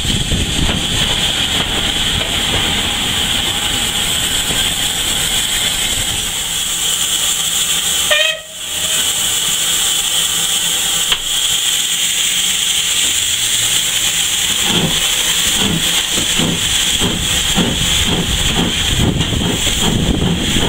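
Steam locomotive, the J72 0-6-0 tank engine, giving off a loud, steady hiss of steam. The sound drops out briefly about eight seconds in. From about fifteen seconds in, low regular beats come in, one or two a second.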